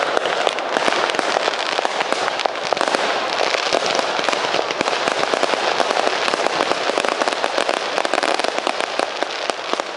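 Fireworks display: a rapid, unbroken string of bangs and crackling from bursting shells. The sound is thin, with little low end, from a mediocre microphone.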